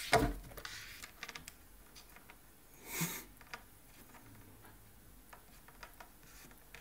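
A cat's paws and claws on the laminate top of a tilted IKEA Lack side table: a sharp knock at the start, a brief scrape about three seconds in, then only faint scattered ticks.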